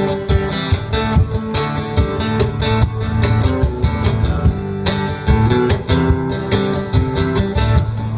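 Instrumental break in a live acoustic country song: an acoustic guitar strumming chords, with percussion hits keeping a steady beat.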